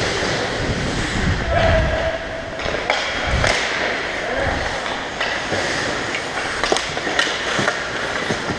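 Ice skate blades scraping and carving across rink ice, with several sharp clacks of hockey sticks striking the puck and the ice.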